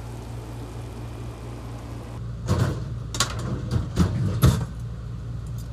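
Several sharp knocks and clinks over about two seconds, starting about two and a half seconds in, as cutlery and kitchen items are handled on a counter, over a steady low hum.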